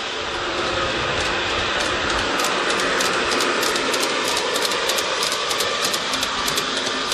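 G-scale model passenger train rolling along floor track, its wheels clicking rapidly and regularly over the rail joints as the locomotive and cars pass, the clicking thickening about two and a half seconds in.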